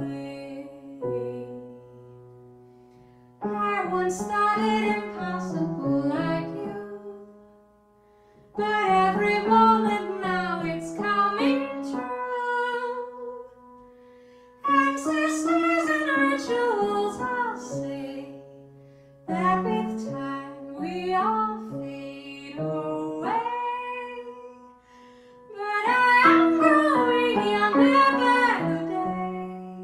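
A woman singing, accompanying herself on a grand piano. Her voice comes in phrases of a few seconds, and between phrases the piano notes ring on.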